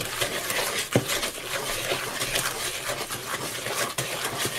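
Wooden spoon stirring a thick, wet butter-and-sugar dough in a mixing bowl: continuous irregular scraping and squelching strokes, with a sharp knock of the spoon against the bowl about a second in.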